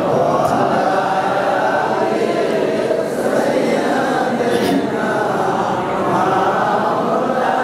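A man's voice chanting a long, wavering melody without a break: the preacher's sung, tearful style of delivery.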